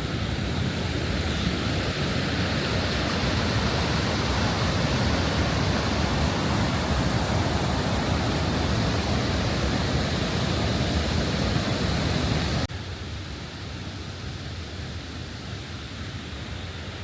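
Ouzoud Falls, swollen after heavy rain, rushing in a loud, steady roar of falling water. About three-quarters of the way through it cuts off suddenly to a quieter, steady hiss.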